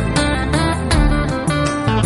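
Background music led by guitar, with notes struck at a regular pace.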